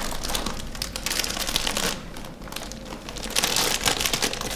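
A snack packet crinkling and rustling as a hand rummages in it, in a quick run of small crackles.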